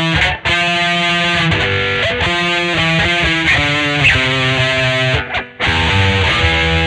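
1982 Vantage VE-550 electric guitar playing a riff of quickly changing sustained notes, with two brief stops, about half a second in and about five and a half seconds in.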